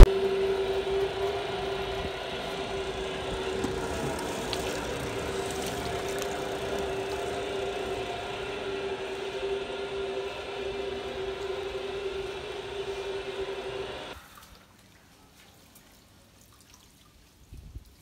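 A 30-year-old washing machine running: a steady motor hum with one held tone, over water churning in the tub. The sound cuts off sharply about fourteen seconds in, leaving near silence.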